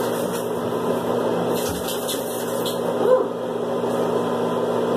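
Steady electric motor hum, like a running fan, with a brief higher-pitched sound about three seconds in.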